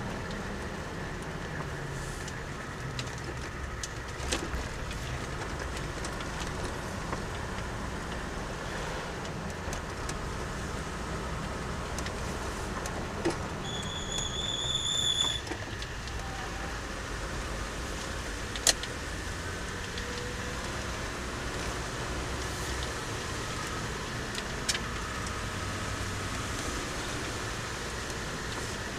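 Car driving, heard from inside the cabin: a steady engine and tyre rumble with a few sharp knocks, and a brief high-pitched squeal about halfway through.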